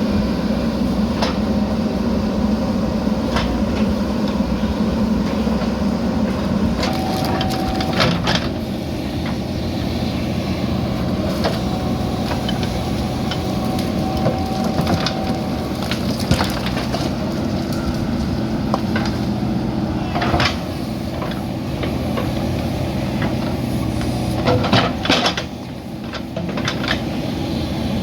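JCB backhoe loader's diesel engine running steadily under work, with a thin whine that comes and goes and scattered sharp knocks and clanks from the bucket and material, several of them close together near the end.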